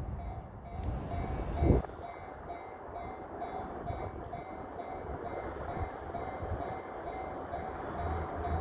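Freight train running past a level crossing, a steady rush and rumble of wheels on rail, while the crossing's warning bell dings over and over. There is one loud low thump a little under two seconds in.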